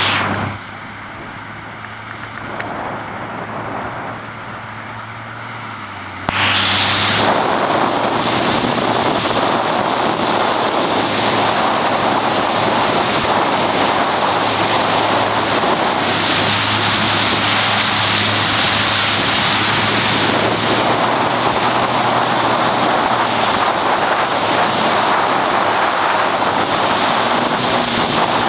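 Watercraft engine running steadily under rushing wind on the microphone and water noise; the roar jumps much louder about six seconds in and stays loud.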